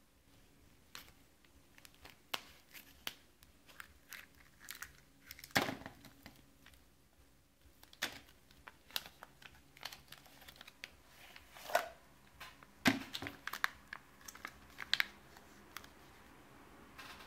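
Irregular clicks, taps and crinkling from handling the packaging and small parts of a paintball marker core kit being unpacked, with a few louder knocks about five and a half, twelve and thirteen seconds in.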